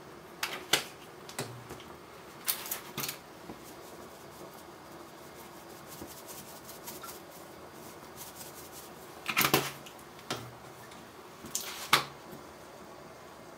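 Plastic spice shakers being shaken and handled over a cooking pot: several short bursts of clicking rattles, some with a light knock, separated by quiet pauses.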